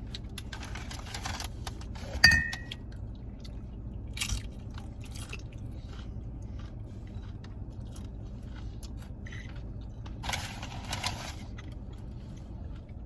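Takeout eating: chewing and crunching, with short bursts of crinkling packaging and a sharp knock about two seconds in, over a low steady hum.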